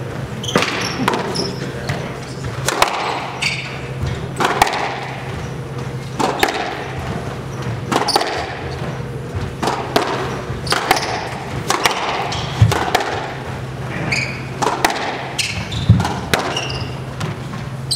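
Squash rally: the ball cracking off racquets and the walls again and again, about a second apart, with sneakers squeaking on the hardwood court. A steady low hum runs underneath.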